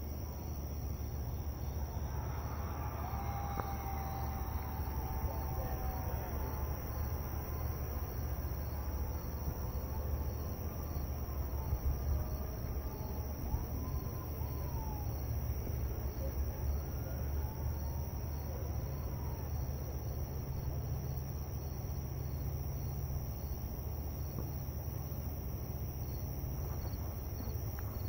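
Crickets chirping in a steady, evenly pulsing chorus over a constant low hum. Faint wavering tones drift in and out during the first half.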